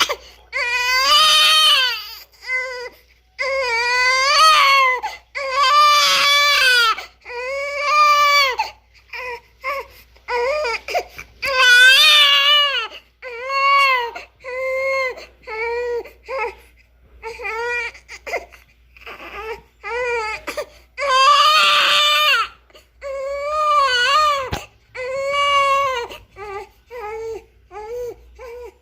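Newborn baby crying: a run of loud wails, each a second or two long with a quick breath between, mixed with shorter whimpering cries.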